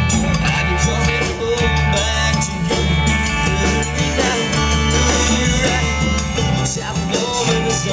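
Live band playing a country-rock song: guitars over a steady bass line and hand drums.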